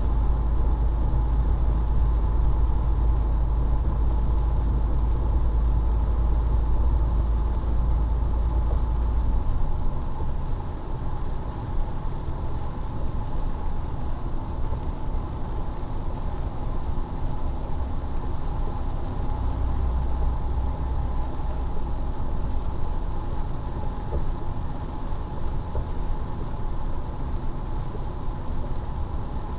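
Steady engine and road noise inside the cab of a large vehicle driving on wet asphalt, with a faint hum and tyre hiss. The deep engine rumble is strong at first, eases about ten seconds in, and swells again briefly around twenty seconds in.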